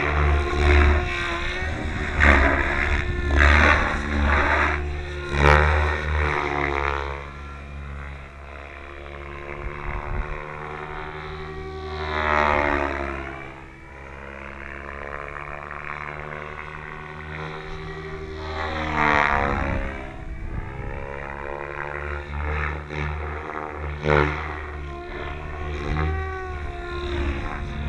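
SAB Goblin 700 electric RC helicopter flying manoeuvres: rotor and motor whine rising and falling in pitch as it swoops. There are two big fly-by sweeps, about twelve and nineteen seconds in.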